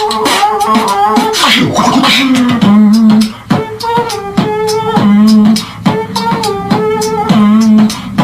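Human beatboxing: sharp mouth-made percussive clicks and snares layered with held hummed tones, in a beat pattern that repeats about every two and a half seconds.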